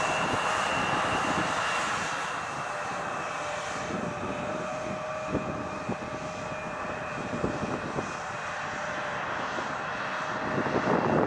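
Airplane engines running: a broad roar with two steady whining tones that drift slightly lower in pitch. It eases off after about two seconds and swells again near the end.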